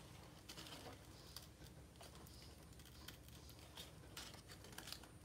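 Near silence with faint, scattered small clicks and rustles of paper being folded and handled by hand.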